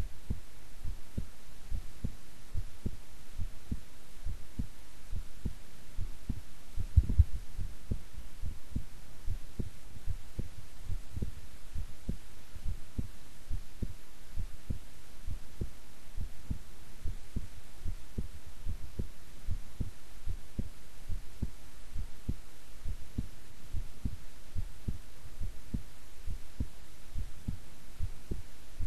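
A woman's heart beating at rest, recorded close against the chest: an even run of soft, low thumps. About seven seconds in there is one louder low thump.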